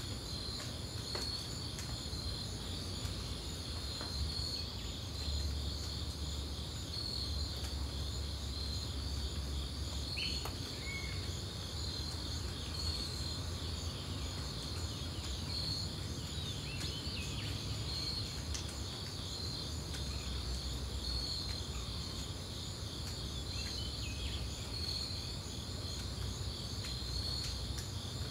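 A steady chorus of crickets and other insects chirping in a fast pulsing rhythm, with a few short chirps a handful of times and a low rumble beneath.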